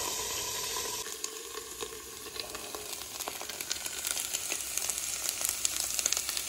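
Pork chops sizzling and spattering in hot oil in a wide round pan over a propane burner. The crackle starts about a second in and grows busier toward the end.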